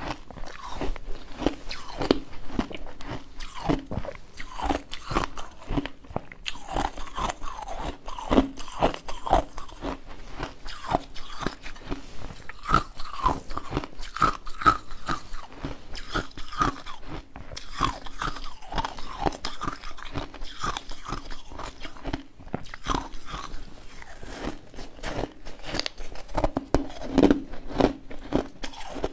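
Crushed ice, pressed into blocks, being bitten and chewed close to a clip-on microphone: a dense, irregular run of crunches and cracks.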